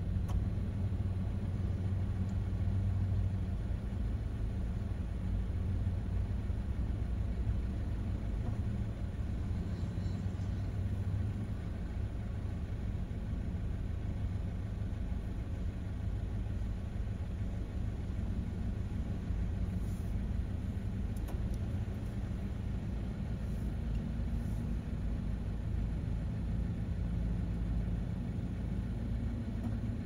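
Car and pickup-truck engines running at low speed close by, over a steady low rumble. An engine hum is strongest in the first few seconds, and a higher engine hum comes in during the last third.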